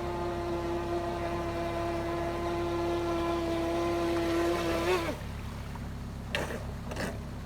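RC hydrofoil boat's motor running with a steady whine that cuts off about five seconds in. Two faint clicks follow.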